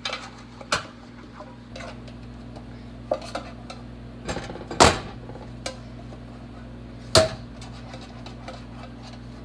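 A metal baking pan knocking and clattering on the counter as it is greased by hand. There are several sharp knocks, the loudest about halfway through and one near the end that rings briefly, over a steady low hum.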